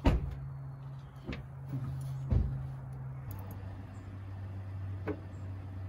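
A few sharp metallic clicks and knocks, loudest right at the start, from a battery cable and metal terminal clamps being handled at the battery. A steady low hum runs underneath and drops in pitch a little over three seconds in.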